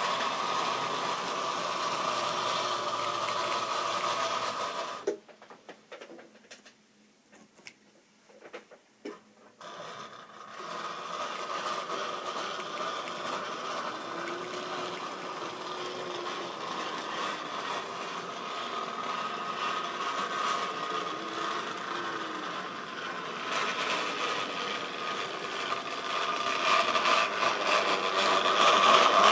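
Model railway train running: a steady electric motor whine with the wagons' wheels rattling and clicking along the track. The sound drops almost to silence for a few seconds about five seconds in, then comes back and grows louder with more clicks near the end as the tank wagons roll past close by.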